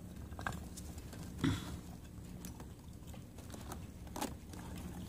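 Scattered light clicks and knocks from a Cadweld exothermic-welding mold and its handle clamp being shifted and seated on a ground rod, the loudest about a second and a half in, over a steady low hum.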